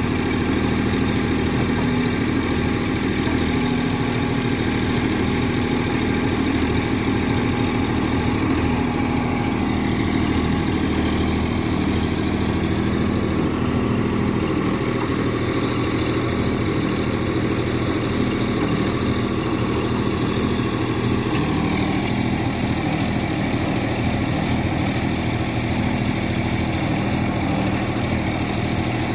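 Tractor diesel engine running steadily while it drives the hydraulics of a tractor-mounted backhoe digging soil.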